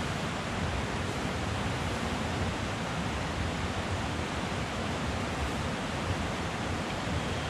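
Steady rushing of a mountain stream, an even hiss with no breaks or separate sounds.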